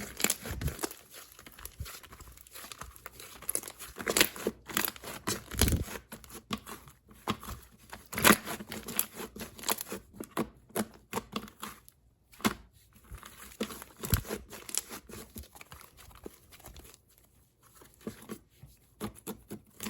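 Foam ball slime being squeezed and stretched, the foam beads giving irregular crackling, crunchy pops with short pauses between squeezes.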